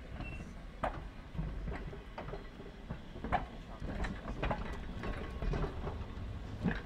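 Vintage electric tram running on track: a low rumble with irregular clanks and knocks.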